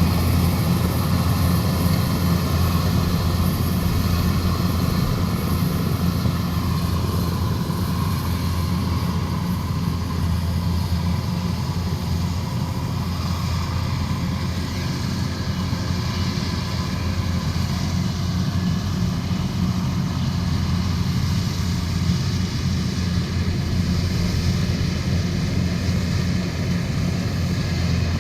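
Diesel engine of a Kubota DC105X rice combine harvester running steadily, a continuous low drone with no breaks.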